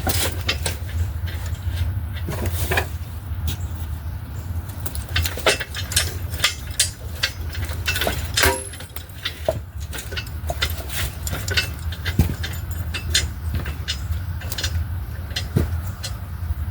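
Irregular clicks and knocks, a few sharper than the rest, over a steady low hum.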